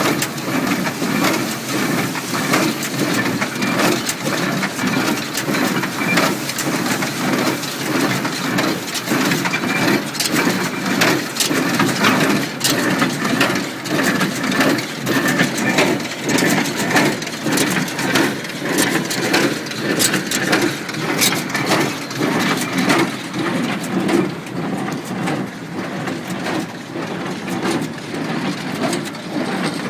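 International Harvester 47 square baler working hay: a steady, repeating pound of the plunger about once a second with clanking and sharp clicks, over a tractor engine running a little above idle.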